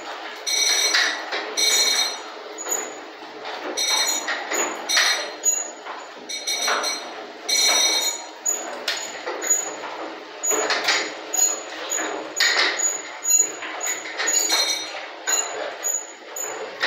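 Rotating steel platform of a 441P01 artillery observation cupola turning on its gears and rollers: a continuous grinding scrape with irregular metallic clanks that ring out at fixed pitches, about one every second or so.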